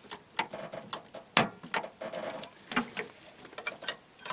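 Scattered clicks and creaks as a flat pry tool works at a plastic push-pin clip behind the cardboard door panel of a third-generation Firebird, with one sharper click about a second and a half in.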